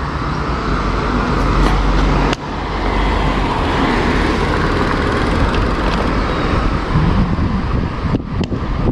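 Steady wind rush on the microphone of a moving road bike, mixed with road and traffic noise.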